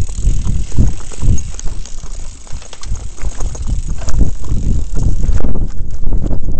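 Mountain bike riding fast over a dirt forest trail: tyre noise on the dirt with an irregular run of knocks and rattles as the bike jolts over bumps and roots. The higher hiss drops away about five seconds in while the knocking goes on.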